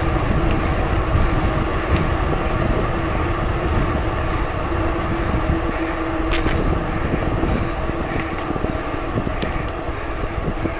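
A bicycle riding along a trail, with steady tyre noise, a constant hum and wind rumble on the phone's microphone. A single sharp click comes about six seconds in.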